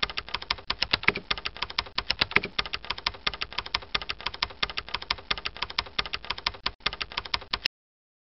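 Computer keyboard typing sound effect: a rapid, unbroken run of keystroke clicks that starts abruptly and cuts off suddenly near the end.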